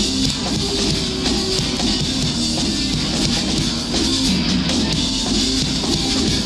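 Rock band playing an instrumental passage without vocals: electric guitars over a drum kit, steady and loud.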